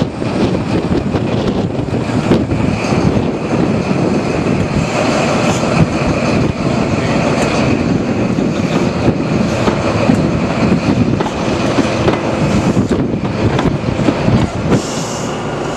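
Diesel High Speed Train with a Class 43 power car passing close by: a steady, loud rumble of engine and wheels on the rails, with a faint high whine and scattered clicks as the coaches roll past.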